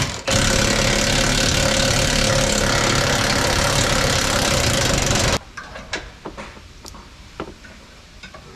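Cordless impact wrench hammering on a bolt for about five seconds, then cutting off suddenly, followed by light metallic clinks of tools.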